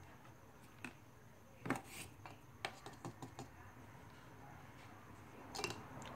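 Plastic spoons knocking and clicking against a plastic tub and the tabletop while slime is stirred: scattered light taps, the loudest just under two seconds in, a quick cluster around three seconds and one more near the end.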